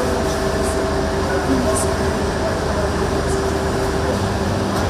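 Steady hum of running industrial machinery in a production hall, with a couple of steady tones in it and a few faint short ticks.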